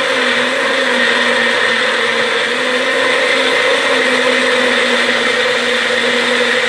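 Electric blender running steadily, its motor giving a level whine as it blends apple pieces into a smoothie.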